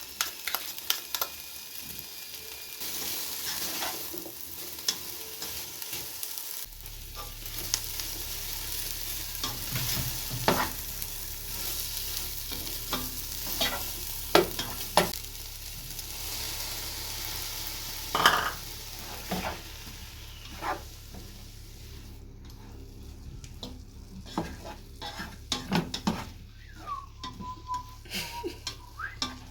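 Garlic paste frying and sizzling in a pan while a spoon stirs it, with repeated sharp knocks and scrapes of the spoon against the pan. The sizzle thins out near the end.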